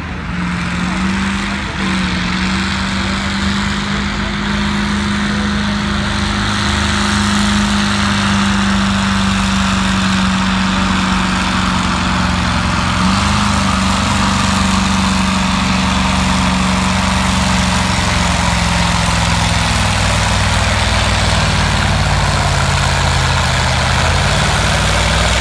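Oliver 2255 pulling tractor's Caterpillar 3208 V8 diesel running hard under load while it drags a weight-transfer sled down the track, holding a steady pitch. About three-quarters of the way through the engine note drops, then climbs again near the end.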